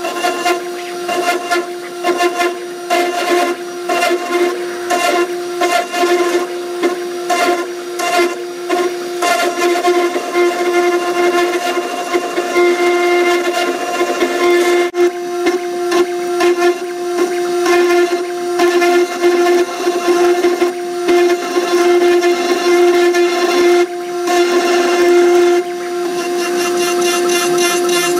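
High-speed spindle of a homemade 4060 CNC engraver running with a steady whine, with rapid irregular ticking and chatter as its ball-nose cutter mills 45C steel.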